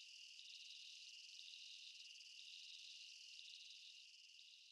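Near silence: only a faint, steady high-pitched hum with a fast flutter, fading out near the end.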